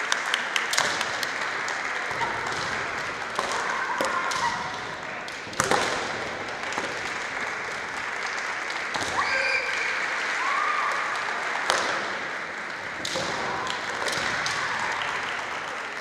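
Kendo bouts in a large gymnasium hall: sharp clacks of bamboo shinai and stamping feet on the wooden floor over a steady hall din, with short shouted kiai from competitors. Two louder strikes stand out, about five and a half seconds in and near twelve seconds.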